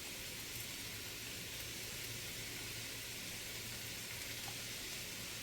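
Diced steak and onions frying in butter in a pan, a steady sizzle, with a faint low hum underneath.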